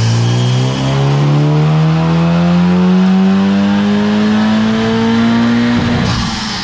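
Honda Civic Type R FK8's turbocharged 2.0-litre four-cylinder engine making a full-throttle pull on a chassis dyno, its note rising steadily in pitch. Near the end the climb breaks into a short rush of noise as the pull ends.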